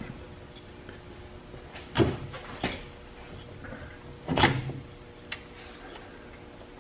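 A few short metal clanks and rattles, about four, the loudest a little past the middle, from the engine's timing chain and metal parts being handled while the chain is fed up through the cylinder.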